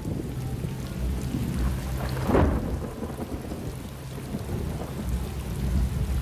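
Heavy rain pouring down onto a pool of water, hissing and splashing over a deep steady rumble. A brief louder burst stands out about two seconds in.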